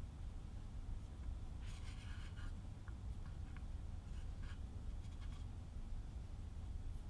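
Miniature wooden rolling pin rolling a tiny piece of dough on a flour-dusted wooden board: a short scratchy rubbing about two seconds in, then a few light taps and scrapes, over a low steady hum.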